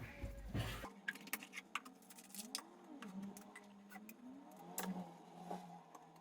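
Scattered light clicks and taps of small plastic ink refill bottles and their caps being handled while they are filled with sublimation ink.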